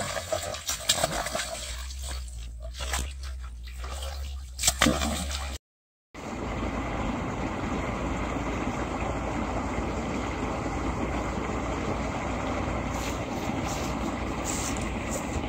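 A hooked fish thrashing at the surface of a shallow canal, irregular splashes with a sharp loud splash near the five-second mark. After a short break, a steady, even rushing noise.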